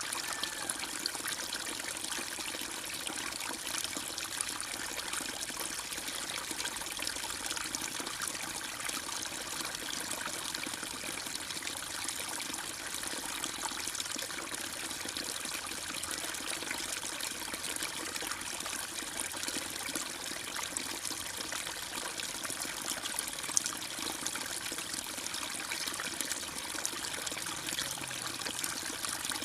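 Steady trickling, flowing water, like a small stream, unbroken throughout, with one brief tick about two-thirds of the way through.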